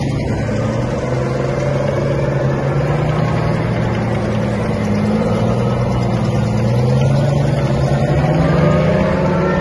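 M113 tracked armored personnel carriers on the move: a steady, loud engine drone, heard close up from on top of a carrier. The engine note rises a little and grows louder about seven to nine seconds in.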